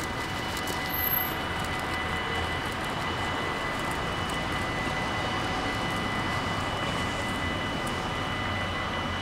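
Warning bells of a Dutch automatic half-barrier level crossing ringing steadily as high, even tones while the crossing is closed, over a steady background hiss.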